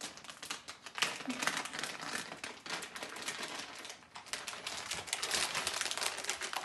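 Plastic cat-treat packet crinkling as it is handled, a dense run of fine crackles that swells and fades.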